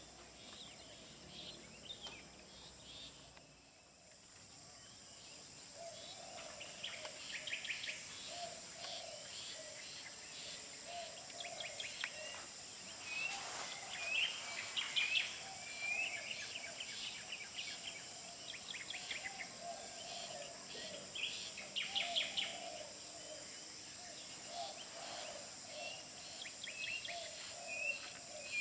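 Wild birds chirping and trilling over a steady high-pitched insect drone, with a run of lower repeated calls starting about six seconds in.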